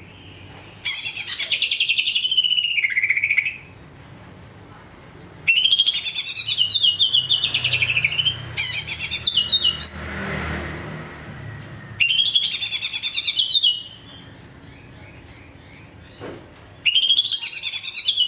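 Green leafbird (cucak ijo) singing in four bursts of rapid, chattering, high trills, each lasting two to four seconds, with short pauses between them.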